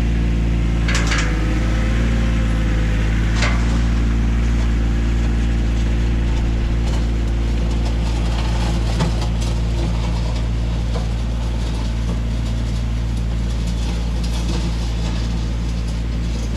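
A diesel machine's engine running steadily while a bucket grades and fills a washed-out gravel driveway. Two brief sharp sounds come about one second and three and a half seconds in.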